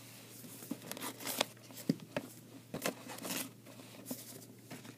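Foil trading-card pack wrappers crinkling and rustling as the packs are taken out of the box and handled, in short irregular crackles.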